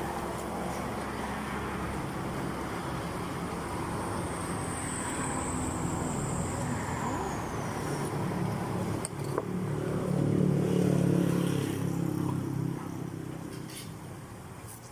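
Motor vehicle running past: a steady low engine and road rumble that swells about ten seconds in, then fades.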